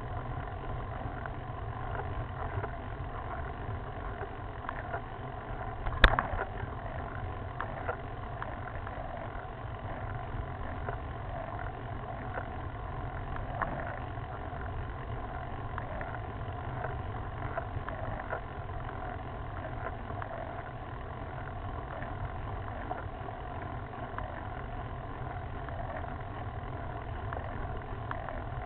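Steady low rumble of wind on a handlebar-mounted camera's microphone and tyre-on-asphalt vibration as a road bike climbs, with one sharp click about six seconds in.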